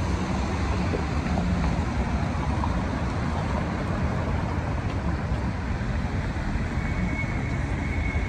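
Steady road traffic noise: cars driving past on a busy road, a constant low rumble with no single passing vehicle standing out.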